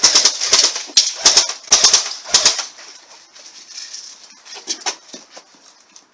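Airsoft guns firing: several short bursts of rapid clicks in the first two and a half seconds, then scattered, fainter shots and clicks.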